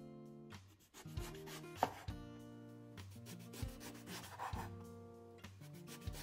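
Kitchen knife slicing through a whole eggplant onto a bamboo cutting board. It makes a few slow strokes, each a soft rasping cut through the flesh that ends in a light tap on the board. Soft background music plays underneath.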